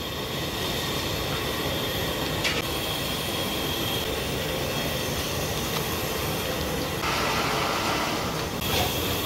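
Steady roar of a gas burner heating a large iron kadai of oil. About seven seconds in, a sizzle rises over it as butter and chopped onion go into the hot oil.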